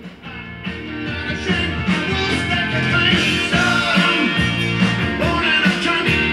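Music playing from a vinyl record on a Dual 504 belt-drive turntable fitted with a Shure V15 cartridge. It gets louder over the first two seconds, then holds steady.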